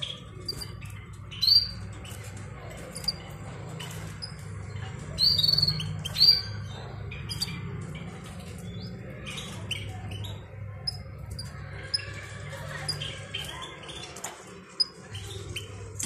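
Caged European goldfinches chirping: short, bright calls scattered irregularly, loudest about a second and a half in and again around five to six seconds in, over a steady low hum.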